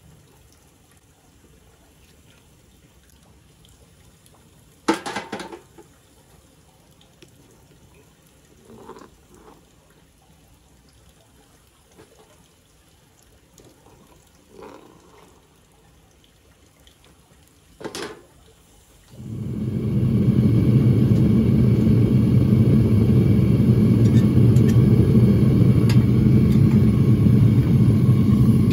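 A few scattered metal knocks while pieces are worked in the open crucible. About two-thirds of the way in, the propane burner of a Devil Forge furnace comes on suddenly and runs with a steady low roar.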